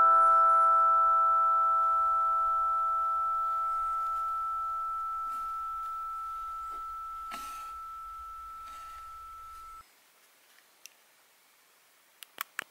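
The closing chord of the background music, several steady tones held and slowly fading, cut off abruptly about ten seconds in. A few faint clicks follow near the end.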